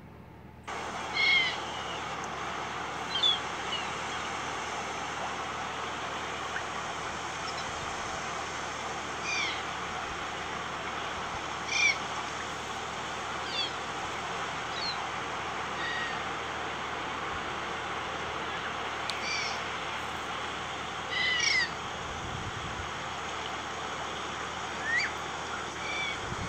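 Small birds chirping: short, high, gliding chirps every one to three seconds, over a steady rushing hiss that starts abruptly less than a second in.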